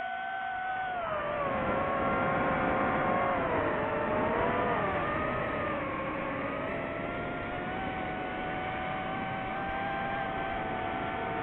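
DJI FPV drone's motors and propellers whining in flight, the pitch dropping and rising as the throttle changes, over a steady rush of air noise.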